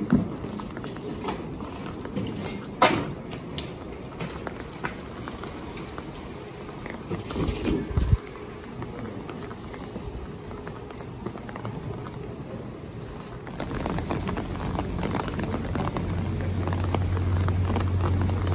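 Walking in light rain: irregular footsteps on wet pavement with scattered small ticks and a sharp click. A short low thump comes just before eight seconds in, and the background grows louder near the end, with a steady low hum for the last couple of seconds.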